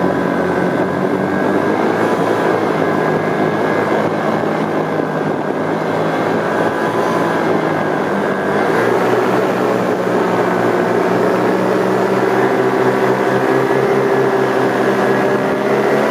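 Paramotor's two-stroke engine and propeller running steadily close to the microphone in flight, the engine note shifting slightly about halfway through as the throttle changes.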